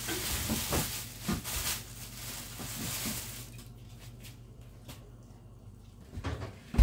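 Rustling and light knocks of packaged frozen fish being handled, fading after about three seconds to a few quieter clicks, with a sharp knock at the end.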